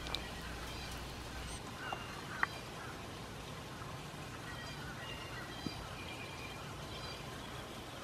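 Quiet outdoor ambience with scattered faint, short, high-pitched bird chirps and calls throughout, and a couple of brief ticks.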